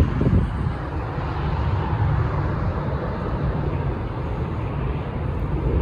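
Airliner landing: a steady rumble of jet engines and rushing air.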